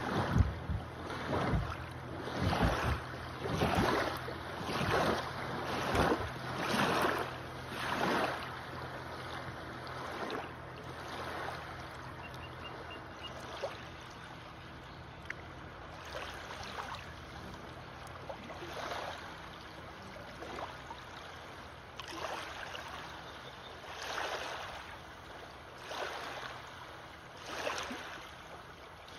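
Small river waves washing and breaking over a shallow sandbar, each wave a swell of splashing water. They come about once a second at first, ease off about halfway through, then pick up again every couple of seconds near the end.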